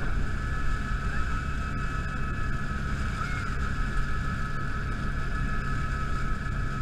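Helicopter running, heard from inside: a steady high whine over a continuous low rumble from the engine and rotor.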